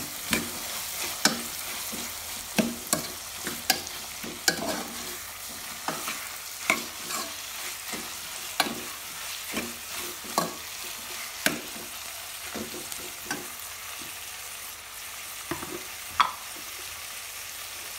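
Buffalo-calf skin and tomato sizzling as they are stir-fried in an aluminium pot. A metal spatula scrapes and clicks against the pot at irregular intervals.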